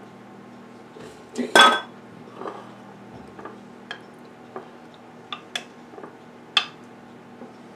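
A metal offset spatula clinking and scraping against a glass loaf dish while thick batter is spread in it. One loud ringing clink comes about a second and a half in, followed by several sharp, lighter clicks.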